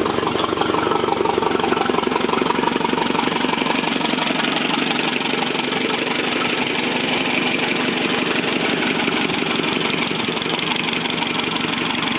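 Ferguson TO30 tractor's four-cylinder petrol engine running steadily at idle, a little quieter after the first few seconds.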